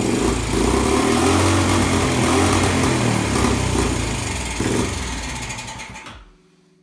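The single-cylinder four-stroke engine of a 1981 Honda Passport C70 (Super Cub) running after a kick start, kept alive only by starting fluid sprayed into the intake, since the carburetor is not yet working. It runs loud for several seconds, then fades and dies about six seconds in.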